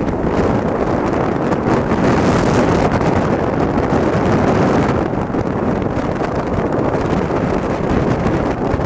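Loud, steady rushing of wind blowing across the microphone.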